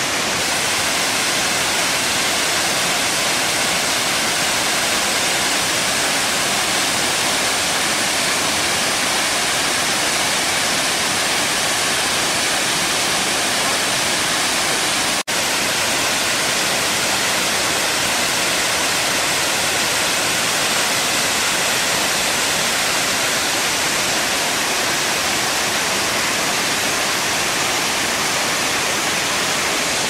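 Kravica waterfall's cascades on the Trebižat river rushing in a steady, even roar of falling water. The sound cuts out for an instant about halfway through.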